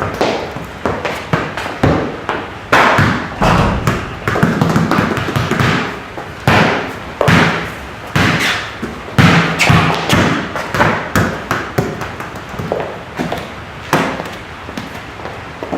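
A run of irregular thumps and taps, one after another for the whole stretch, recorded close up on a Blue Yeti USB condenser microphone during a sound test.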